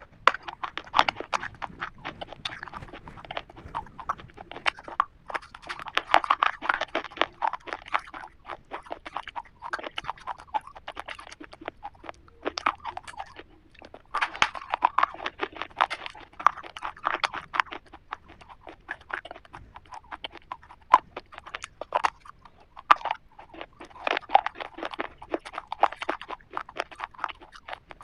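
Someone biting and chewing a black KitKat chocolate wafer bar: a long run of crisp crunches and crackles in spells, with brief pauses between bites.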